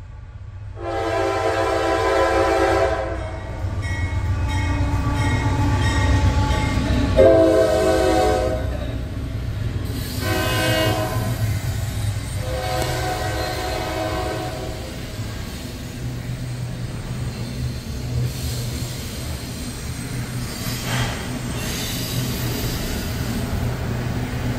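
A freight locomotive's multi-chime air horn sounds a series of long blasts over the first fifteen seconds as a double-stack intermodal train passes close by. Under the horn, and after it stops, the train's wheels and cars keep up a steady rumble with occasional clanks.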